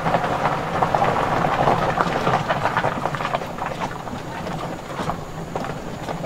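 Vehicle tyres rolling slowly over a gravel road, a dense crackling crunch of stones over a low steady hum, getting quieter in the second half.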